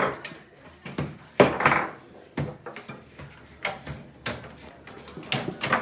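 Table football game in play: the ball and the rod-mounted players knock against the wooden table and each other. It makes about eight sharp, irregular knocks and clacks, spaced from a fraction of a second to about a second apart.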